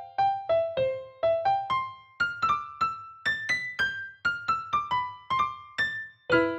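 Background piano music played on a phone piano app: single notes tapped out one after another in a wandering, improvised tune, with several notes struck together near the end.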